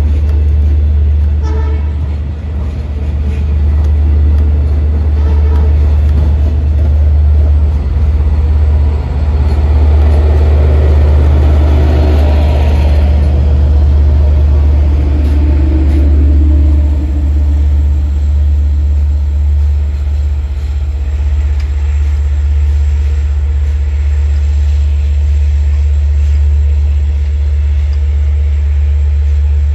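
Long Island Rail Road diesel train running with a loud, steady low rumble. The tail of its horn blast fades out at the start, and the rumble swells and eases off about ten to thirteen seconds in.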